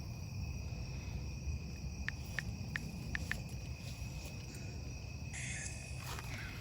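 Night chorus of crickets, a steady high trill, over a low rumble. About two seconds in come five short ticks, and a brief hiss sounds near the end.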